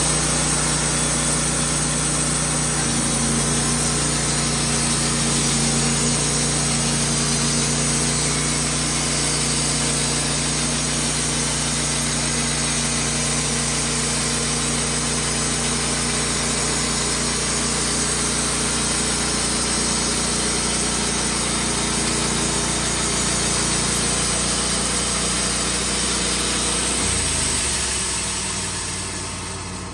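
Wood-Mizer LT15 band sawmill cutting lengthwise through a maple log: its engine runs steadily under load while the band blade saws the wood. The sound drops in level near the end.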